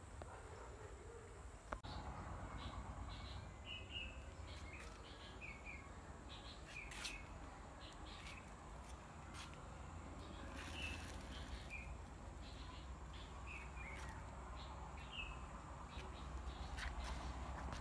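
Small birds chirping in short, high notes scattered every second or so, over a low steady rumble. A single sharp click about two seconds in.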